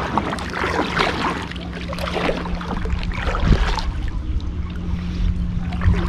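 Water splashing and lapping against an inflatable kayak, with wind buffeting the microphone and a steady low hum; the loudest splash comes about halfway through.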